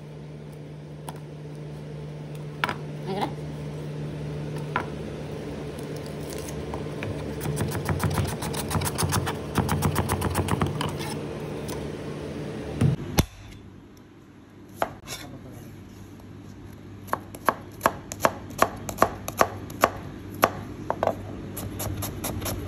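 Chef's knife slicing red onion on a plastic cutting board: a fast run of knife strikes on the board in the first half, then separate cuts about two a second after a short pause. A steady low hum sits under the first half and stops partway through.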